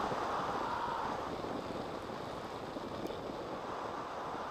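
Wind from a tandem paraglider's flight rushing over the GoPro microphone, a steady rough rush that eases a little about a second in.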